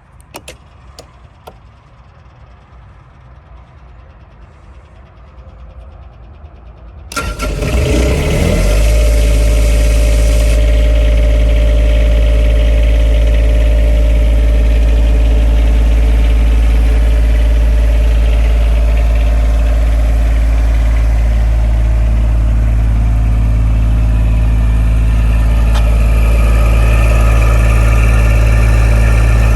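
A few faint clicks, then the Yanmar 3TNV76 three-cylinder diesel of a CompAir C 15-14 mobile compressor is cranked about seven seconds in, catches within a second or two and settles into a steady run, a little louder near the end.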